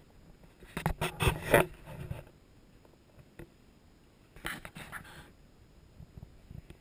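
Two short bursts of rustling and scraping, about a second in and again past four seconds, with little sound between.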